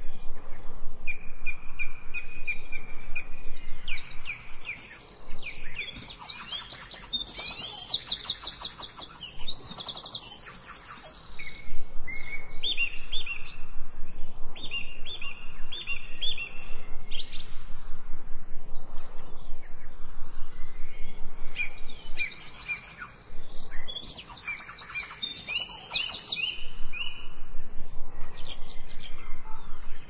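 A chorus of several songbirds singing and chirping at once, mixing runs of clear repeated whistled notes with fast high trills and chirps, busiest about a third of the way in and again near the end.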